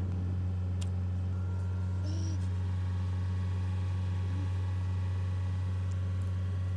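Steady, low engine hum that does not change in pitch or level.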